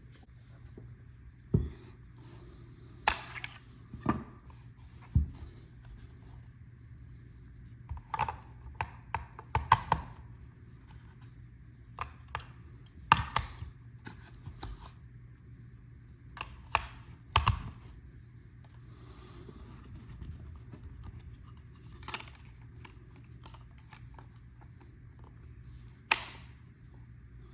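Hands fitting three AA batteries into a PSB7-Pro spirit box's plastic battery compartment: scattered sharp clicks, taps and knocks at irregular intervals, with a steady low hum underneath.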